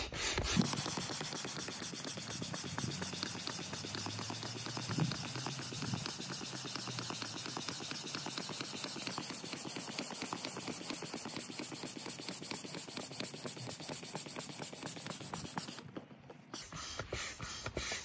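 Hand pump being worked to inflate an inflatable kayak's side chamber: air rushing and hissing through the pump and hose in a rapid, even rhythm. It stops about 16 seconds in.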